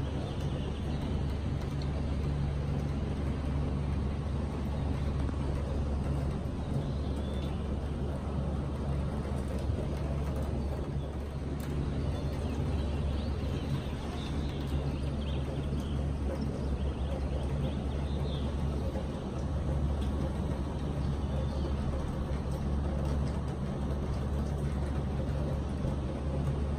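Steady outdoor city ambience: a constant low rumble with an even hiss over it.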